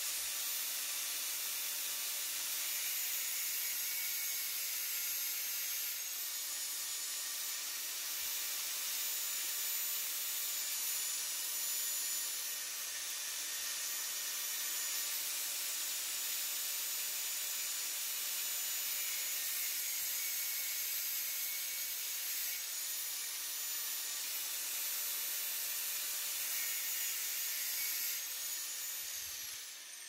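Small angle grinder running with its disc cutting into metal, a steady high whine over a grinding hiss whose pitch shifts a little as the disc bites. It is cutting new grooves into screw heads that had been stripped. Near the end it is switched off and the whine falls away as the disc spins down.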